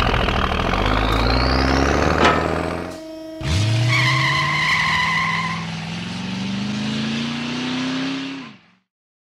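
Cartoon sound effect of a truck engine. It runs loudly and drops away about three seconds in, then starts again and revs with a steadily rising pitch. A steady high tone sounds over it for about a second and a half, and the engine fades out shortly before the end.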